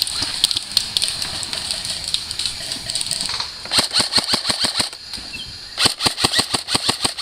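Two bursts of full-auto fire from a suppressed M4-style airsoft rifle, rapid clacking shots at about ten a second: a short burst about halfway through and a longer one near the end. Before them, a busy patter of scattered clicks.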